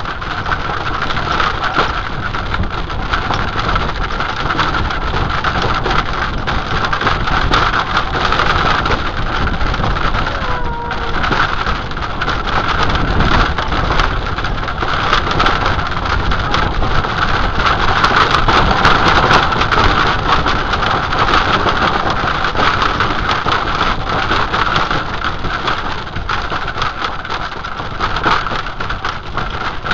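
Wind buffeting the microphone of a camera carried by a rider on a galloping horse: a loud, steady rush of noise that does not let up.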